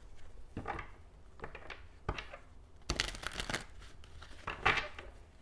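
Tarot cards being handled and shuffled: a series of soft rustles, flicks and clicks of card stock, loudest about three seconds in.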